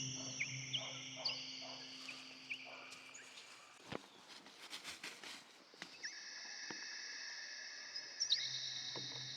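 Soft ambient music of long held high tones over a low drone. The music drops away in the middle, leaving a few light clicks and taps, and the high tones come back near the end.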